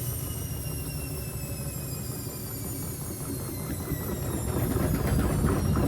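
Washing machine drum spinning down after being switched off mid-spin, its motor whine falling steadily in pitch over a low rumble. Near the end it turns to louder, uneven knocking as the drum slows.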